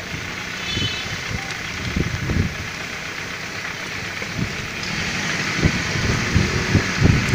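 Steady noise of a moving vehicle with wind buffeting the microphone in irregular low thumps, growing louder and more frequent about five seconds in.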